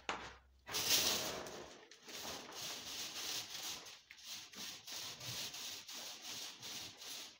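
Electrician's fish tape being pushed by hand through a wall conduit, scraping against the inside of the pipe in short repeated pushes, about two or three a second.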